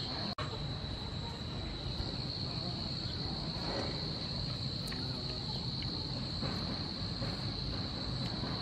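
Insects chirring in a steady, high-pitched drone, over a low outdoor background rumble.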